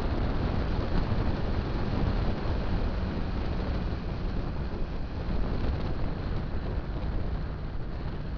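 Wind rushing over the microphone of a motorcycle-mounted camera while riding, with the motorcycle's engine running steadily underneath.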